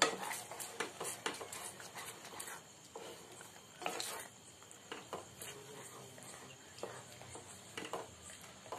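Spatula stirring thick gravy in a nonstick pan: soft, irregular scrapes and small knocks of the spatula against the pan, with the sauce squelching as it thickens.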